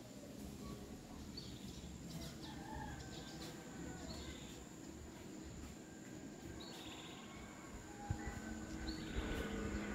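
Birds chirping now and then over a low rumbling background noise, with a faint steady high-pitched tone.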